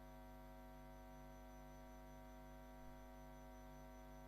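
Faint, steady electrical mains hum, a constant buzz with many even overtones and no other events.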